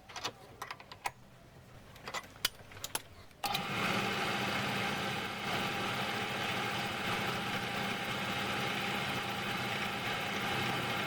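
A few light clicks and knocks of tools being handled, then about three and a half seconds in a belt-driven mini lathe switches on and runs steadily, its motor and pulleys giving an even hum with a higher whine.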